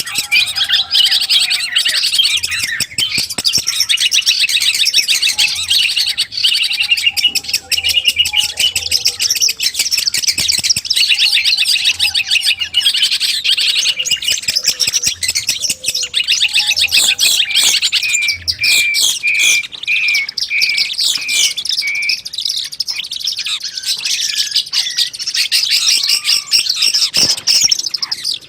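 Long-tailed shrike (cendet) song: a fast, busy chatter of high notes, with low whistled slurs mixed in during the first half and a run of clear, evenly repeated notes about two-thirds of the way through.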